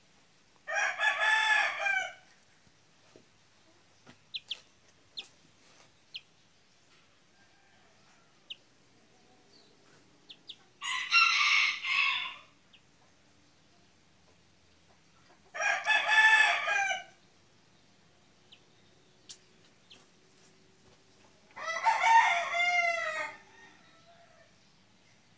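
Young chicken crowing four times, each crow lasting about one and a half to two seconds, with long pauses between.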